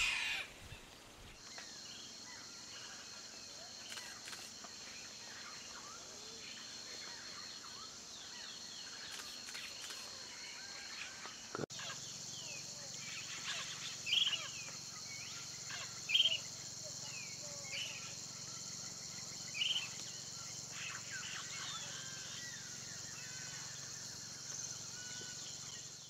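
Rainforest ambience: a steady high-pitched insect drone with many short bird chirps and calls over it, a few of them louder in the second half.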